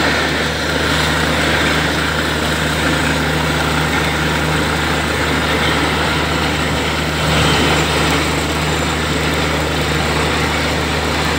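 Borewell drilling rig's engine running steadily with a deep, even hum, over a continuous rush of muddy water gushing from the freshly drilled bore.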